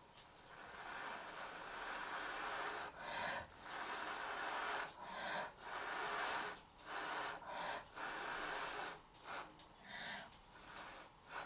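Small handheld torch hissing in repeated bursts of a second or two with short breaks, passed over wet poured acrylic paint.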